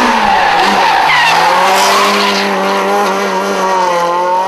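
Rally car sliding sideways through a corner at speed, tyres skidding loudly over the hard-running engine during the first two seconds or so, then the engine note holding steady as the car pulls away.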